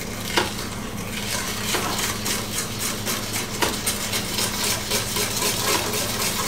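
Wire balloon whisk beating hot milk into egg yolks and sugar in a stainless steel bowl: a rapid, steady clatter of wire against metal as the yolks are tempered for a custard ice-cream base. A low steady hum runs underneath.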